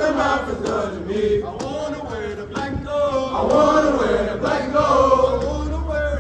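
A group of voices chanting together in drawn-out sung calls that rise and fall in pitch, in the manner of a fraternity probate chant.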